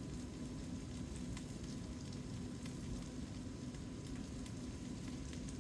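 Cornstarch-dredged tofu cubes frying in sesame oil in a skillet: a steady sizzle with scattered small pops and crackles.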